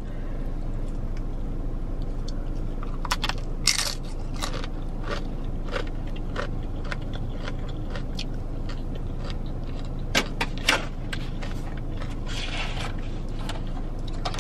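Eating sounds: scattered crunches and clicks of bites of tortilla chips and a fork scraping in a paper bowl, over the steady low hum of a car's cabin. A short rustle near the end as the foil lid goes back on the bowl.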